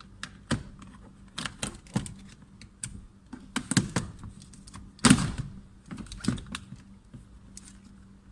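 Irregular plastic clicks and knocks of a car's power window switch being pried out and unclipped by hand, with one louder knock about five seconds in.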